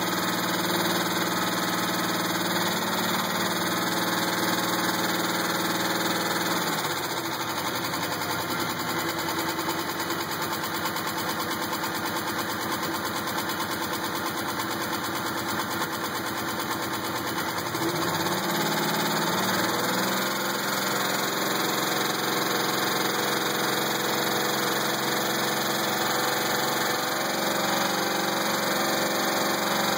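2000 Pontiac Grand Prix GTP's supercharged 3.8-litre V6 running at raised revs, easing down about seven seconds in and revving back up around eighteen to twenty seconds. A knock persists through the changes in engine speed. The owner doubts it is a rod or the flex plate and thinks it might be a spring.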